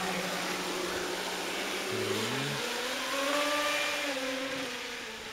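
Battery-electric motor of a radio-controlled speedboat whining at speed, over a steady hiss. The pitch rises about two seconds in and falls away near the end.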